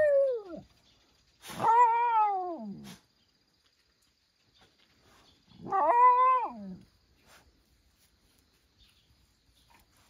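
Dog barking timidly at a frog: two drawn-out, whining barks a few seconds apart, each falling in pitch as it ends.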